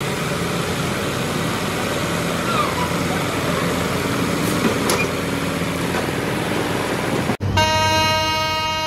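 Road traffic with heavy vehicle engines running. After an abrupt cut near the end, a loud vehicle horn starts blaring steadily.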